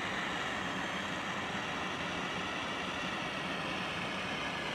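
Small handheld blowtorch flame burning steadily with an even hiss, heating old window tint on the glass.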